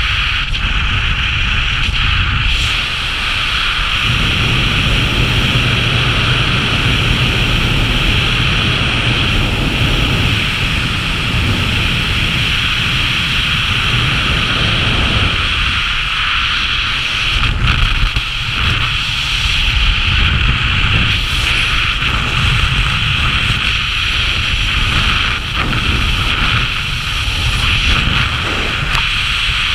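Airflow rushing steadily over a body-worn camera's microphone in a speed-flying descent, a continuous loud rush with a low rumble of wind buffeting that swells and dips.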